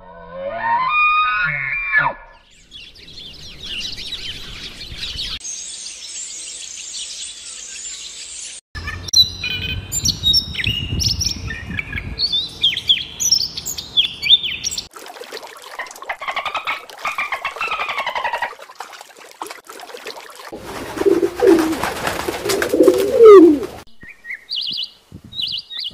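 A string of short animal-sound clips joined by abrupt cuts. Bird chirps and song fill the middle stretch, with a European robin singing, and near the end a lower call with rising slides in pitch is the loudest sound.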